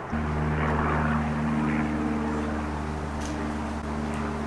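A steady engine drone, even in pitch throughout, starting suddenly just after the start.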